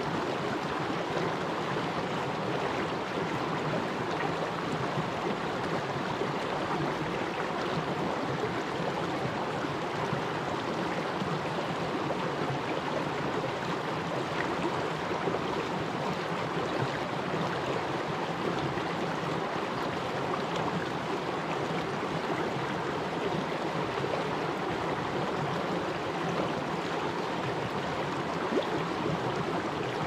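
Shallow stream flowing over rocks, with a steady rush and babble of water.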